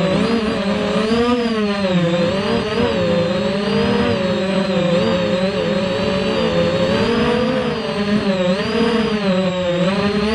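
Electric motors of an FPV racing quadcopter whining, the pitch rising and falling continuously with throttle changes through the lap.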